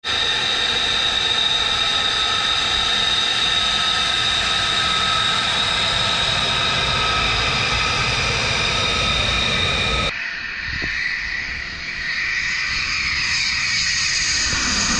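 F-35 Lightning II's single F135 turbofan running with a steady high whine as the jet rolls past along the road. About ten seconds in it cuts abruptly to the rushing noise of a jet flying low overhead, growing louder with sweeping pitch.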